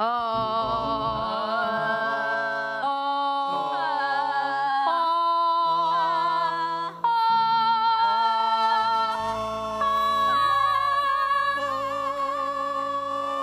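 Voices singing a vocal exercise from low to high: a high note held with a wavering vibrato over lower notes that change in steps.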